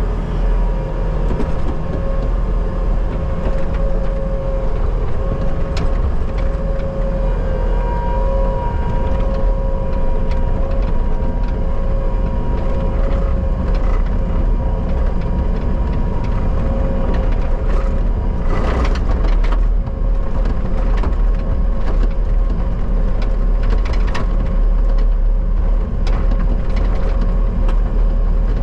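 Bobcat skid steer engine running steadily at working speed, with a steady whine over it and scattered knocks. There is a brief rough, crunching noise about two-thirds of the way through.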